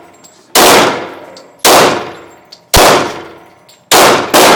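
Glock 22 .40 S&W pistol firing about five shots, roughly a second apart at first and the last two in quick succession near the end, each shot ringing out and dying away.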